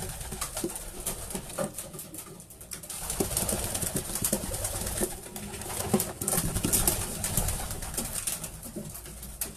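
Racing pigeons cooing in a loft. Wing flaps, rustling and scattered clicks come from a pigeon being caught and held in the hands, and grow louder about three seconds in.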